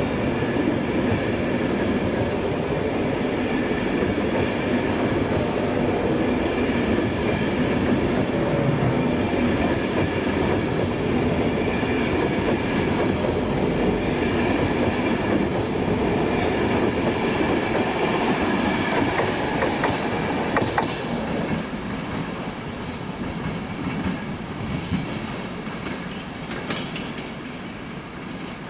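Mk4 coaches of an electric InterCity 225 train rolling past along a station platform: a steady rumble with wheel clickety-clack. About two-thirds of the way through the sound drops suddenly to quieter, more distant train noise.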